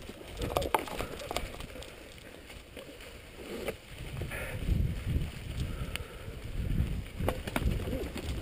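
Mountain bike riding over a track covered in fallen leaves: tyres rolling through the leaves, with irregular knocks and rattles from the bike on the bumps. A low rumble builds from about halfway through.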